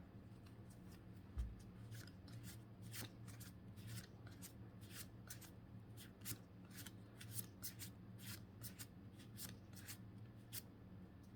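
Pokémon trading cards being flicked one after another through a freshly opened booster pack, with faint quick clicks about two or three times a second.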